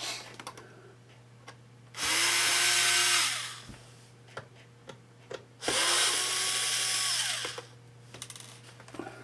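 Electric screwdriver running twice, about two seconds in and again near six seconds, each run winding down in pitch as it stops, backing out the case screws of a Synology DS212j NAS so the case stops pressing on the power button. Small handling clicks between the runs.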